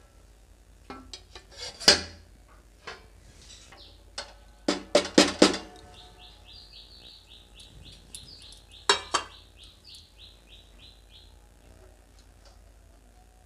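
Steel and brass cookware clanking as a steamed dhokla tin is lifted out of a kadai steamer and handled over a brass plate. Sharp metal knocks come about two seconds in, in a quick cluster around five seconds, and twice more near nine seconds. From about six to eleven seconds a bird chirps in a quick, even series of short high notes.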